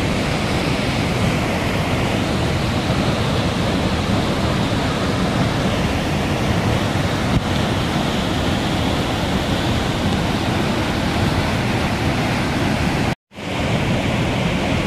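Rushing floodwater pouring over a rocky waterfall: a steady, dense rush of water noise that cuts out for a split second near the end.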